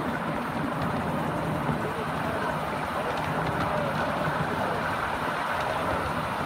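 A 7¼-inch gauge miniature train running steadily along its track, heard from one of its ride-on passenger cars: a continuous even rumble of the wheels on the rails.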